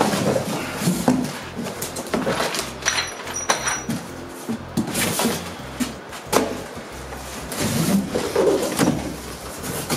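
A large cardboard box being handled and unpacked: flaps pulled open and smaller cardboard boxes inside sliding and rubbing against each other, with irregular scraping and knocks.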